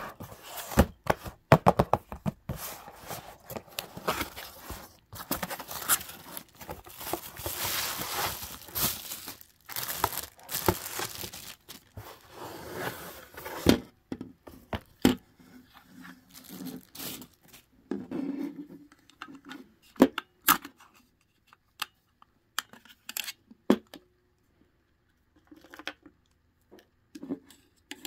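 Unboxing noises: packaging and bubble wrap torn and crinkled, in dense rustling for about the first half. Then it thins to scattered clicks and taps as the rose lamp's plastic base is handled to put in an AA battery.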